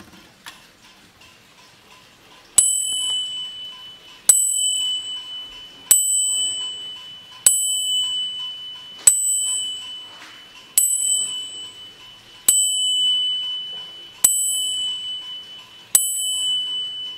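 An ODO mantel clock striking nine on a brass bell, hit by the rod of an animated bronze knight figure: nine evenly spaced strikes about a second and a half or more apart, each ringing on and fading before the next. Faint ticking of the clock movement comes before the first strike.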